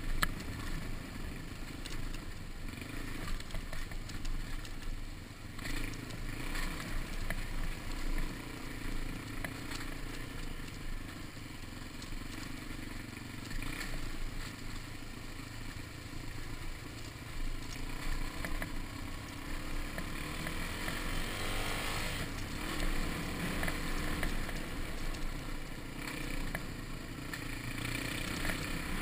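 Dirt bike engine running under way on a rough, stony dirt track, with rattling and clatter from the bike over the ground and wind on the microphone. The engine revs up about two-thirds of the way through.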